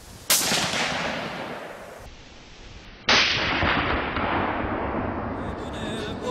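Two rifle shots about three seconds apart, each sudden and loud with a long echo that dies away over a couple of seconds. The second shot is the louder.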